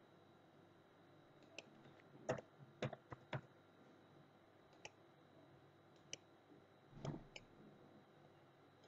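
Faint, scattered clicks of a computer mouse and keyboard keys, a few at a time with near silence between.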